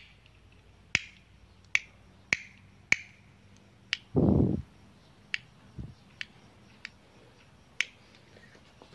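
Chainsaw carburetor's throttle lever worked by hand and snapping back under its newly fitted return spring: about ten sharp clicks at irregular intervals, the spring working normally again. A short, low, dull sound about four seconds in.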